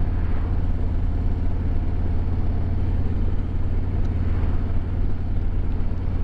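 Harley-Davidson Road Glide Limited's Milwaukee-Eight 114 V-twin engine running steadily while the bike is ridden, a constant low pulsing rumble.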